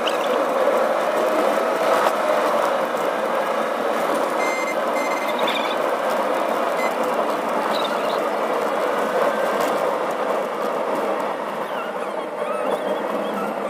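Steady road and engine noise heard from inside a moving car, with two short high beeps about four and a half seconds in.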